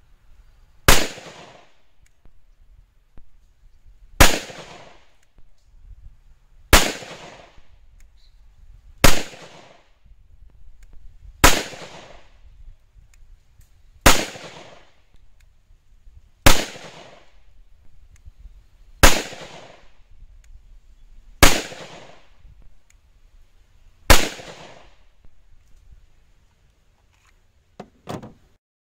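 Ten shots from a Smith & Wesson M&P 5.7 pistol firing 5.7x28mm S4 ammunition over a chronograph, evenly paced about one every two and a half seconds, each with a short echo. A couple of faint clicks follow near the end.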